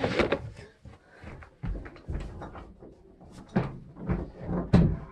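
A string of irregular knocks and thumps, the loudest a little under five seconds in.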